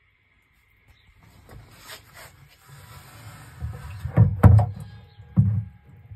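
A hand working at a netbook submerged in a tub of water: a soft rustle of moving water builds, then three dull knocks come in the second half.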